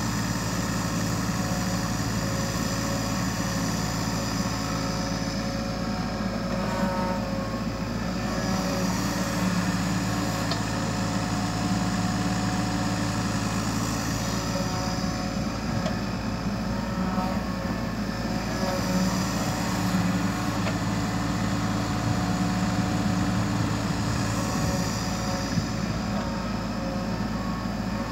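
Kubota U35 mini excavator's diesel engine running steadily while the machine digs and mixes soil, its note rising and easing every several seconds as the load changes.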